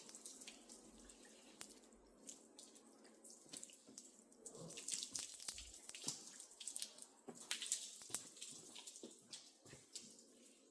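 Water running and splashing on a car hood as it is washed down, with irregular small splashes and drips.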